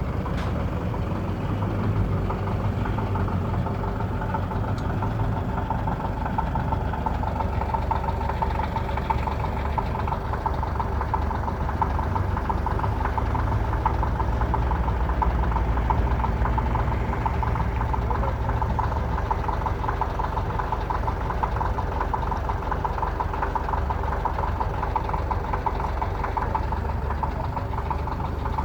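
An engine running steadily at idle: a low drone with a steady mid-pitched whine over it.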